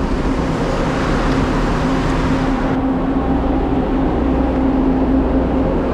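A motor vehicle running steadily: a continuous engine hum over low road rumble.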